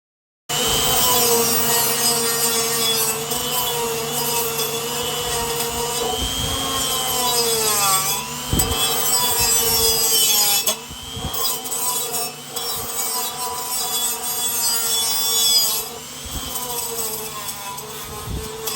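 Electric power tool working the aluminum intercooler tubing, its motor whining steadily with a gritty, hissy cutting sound; about six seconds in the motor's pitch sags under load and then recovers.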